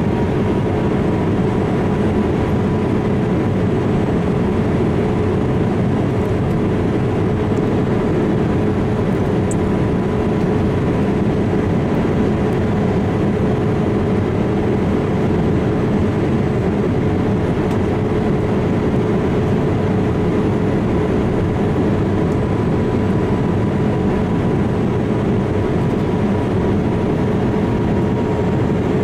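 Boeing 787-8 airliner noise: an even, unchanging rumble with a steady mid-pitched hum and a fainter higher tone.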